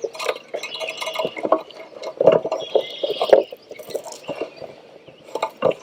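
Water splashing and dripping with irregular wet knocks as a just-caught largemouth bass is handled and laid on a fish measuring board.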